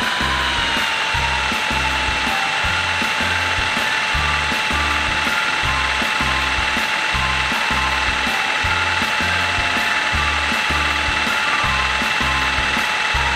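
Cordless drill running at a steady speed with an even, high motor whine. It is spinning a plastic fishing dart in a hole drilled in a steel block, shaving the dart down to size.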